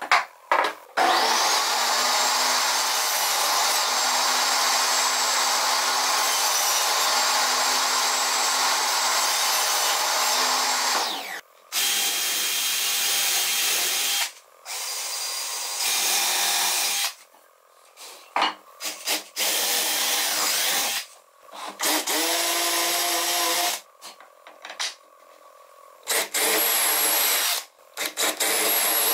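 DeWalt cordless drill running and drilling into wood. It spins up about a second in and runs for about ten seconds, then cuts out. Several shorter bursts follow, with gaps between them.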